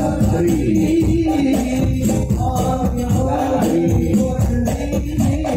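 Devotional sholawat singing with hand percussion including jingling tambourine-like instruments, played loud through a large public-address sound system.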